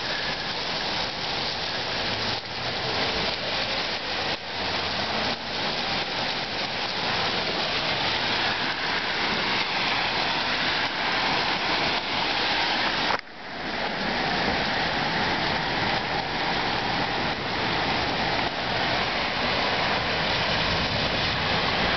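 Heavy rain falling steadily, a dense, even hiss on pavement and roofs, with tyres of passing cars swishing on the flooded road. The sound drops out abruptly for a moment a little past halfway, then carries on.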